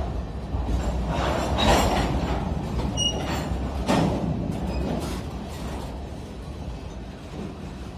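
Freight train cars rolling past at close range, covered hoppers then empty flatcars: a steady rumble of steel wheels on rail, with louder clattering surges about two and four seconds in and a brief squeal near three seconds. The sound eases off in the second half as the flatcars go by.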